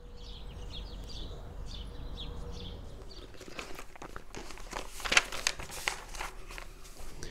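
Birds chirping outdoors over a low rumble for the first three seconds, then the paper pages of a composition notebook being flipped by hand, a run of quick rustles and flaps.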